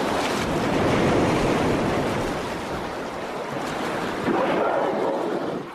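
Sea water churning and splashing as humpback whales lunge-feed through the surface: a steady rushing wash that swells again a little over four seconds in.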